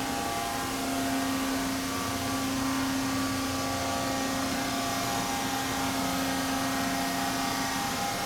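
Steady machinery hum: a constant drone with several held tones over a hiss, unchanging throughout.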